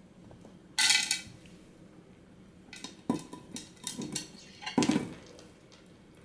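A sharp ringing clink about a second in, then a few light knocks and clatters of a clear plastic box as a cat paws at it and pushes its head inside.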